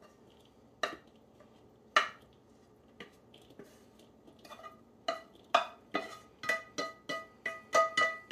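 Wooden spoon knocking against a frying pan while scraping cooked sausage out into a mixing bowl. There are two sharp knocks, then from about halfway a quick run of taps, each leaving the pan ringing briefly.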